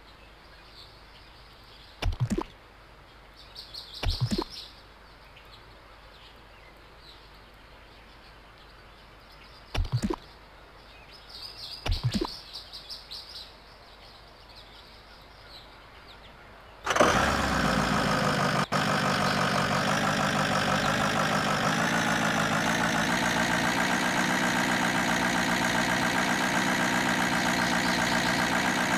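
Battery-powered toy vehicle's electronic engine sound effect from its small speaker. It starts suddenly and then runs steadily at an even pitch, after a few short clicks and chirps from the toy being handled and its buttons being pressed.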